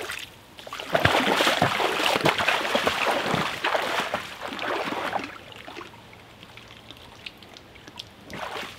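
A net scooped through a shallow, muddy stream: water splashing and sloshing for about four seconds, then only the stream trickling.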